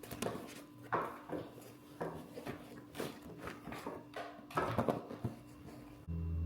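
Knocks, clatter and rustling of things being handled and put away. About six seconds in, this gives way abruptly to a steady low hum.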